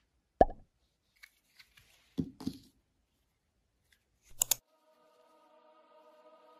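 Close handling sounds of a small plastic hand-cream tube: a sharp thump, a few light clicks and two knocks. Past the middle comes a sharp bright clack like a clapperboard snapping shut, and then a soft chord of held tones fades in as music begins.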